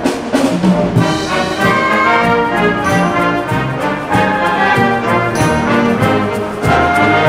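Concert band (wind ensemble) playing, with brass and woodwinds sounding together over changing notes.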